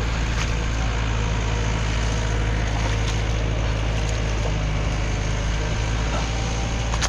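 A steady, unbroken low engine drone with a few faint ticks over it.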